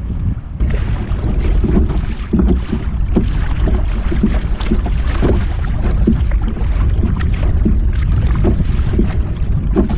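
Kayak paddle blades dipping and splashing in choppy water, roughly two strokes a second, starting about half a second in, over a steady rumble of wind buffeting the camera microphone.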